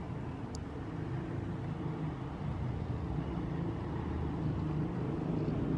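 Steady low rumble of road traffic, slowly growing a little louder.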